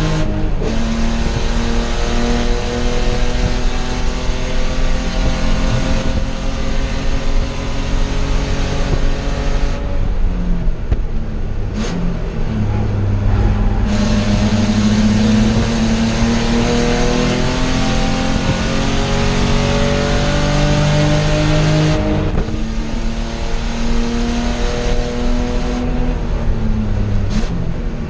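Spec E30 BMW race car's straight-six engine heard from inside the cabin, pulling at high revs with a steadily rising pitch. It eases off about ten seconds in and again around twenty-two and twenty-six seconds, then pulls again.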